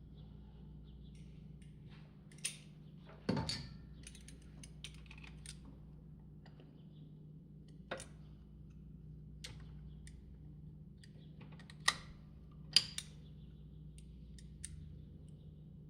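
Scattered sharp clicks and knocks of hand tools and metal parts being handled during the breather fitting job. There are about five louder ones; the loudest comes about three seconds in and rings briefly. A faint steady hum sits underneath.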